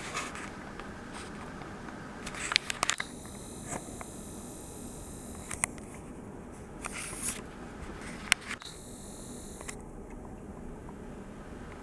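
Small clicks and taps from handling a Canon IXY 150 compact digital camera during repair, with a high-pitched whine that comes in about three seconds in and again briefly near the ninth second.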